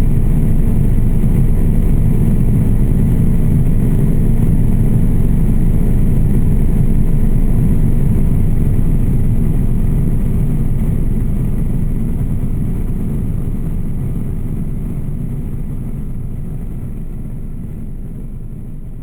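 Aircraft engine in flight heard from outside: a steady low drone that fades gradually over the second half.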